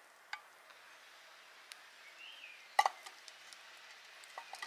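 A steel camping mug set down on a stone wall with a sharp double clink about three seconds in, over a faint steady hiss and a few light ticks.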